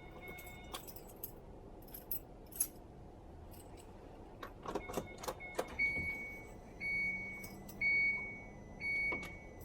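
Car keys jangling and clicking, then the 2014 Kia Rondo's dashboard warning chime starts about six seconds in and repeats about once a second.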